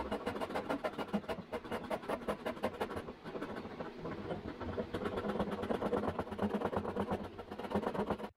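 Japanese-style pull saw cutting across the angled end of an oak stretcher by hand, in quick, even rasping strokes.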